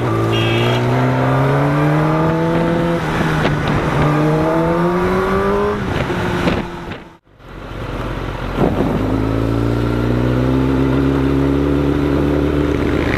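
Kawasaki ZX-10R inline-four engine heard on board, pulling up through the revs with its pitch rising, dropping at a gear change about three seconds in and rising again. The sound cuts out briefly around seven seconds in, then the engine picks up and climbs slowly once more.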